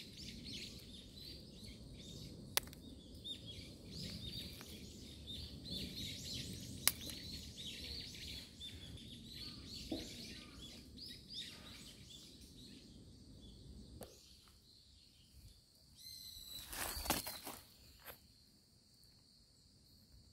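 Small birds chirping in many quick, short calls over a low, steady rumble of outdoor background noise; the chirps thin out after about twelve seconds. Two sharp clicks fall in the first seven seconds, and a brief burst of noise comes near the end.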